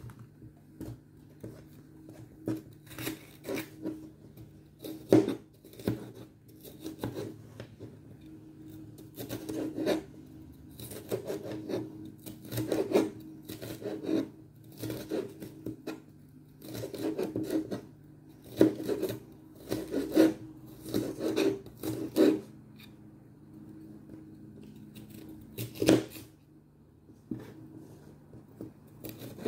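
Kitchen knife slicing green bell pepper on a plastic cutting board: repeated knocks of the blade on the board in quick runs with short pauses. A steady low hum runs underneath.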